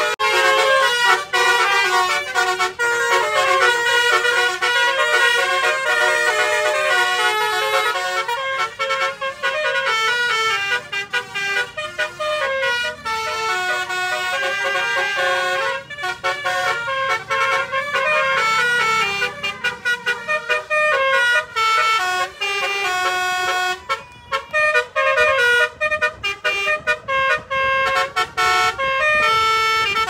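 Telolet multi-tone car horn playing a melody: a chain of short pitched toots stepping quickly from note to note, with little gaps between them.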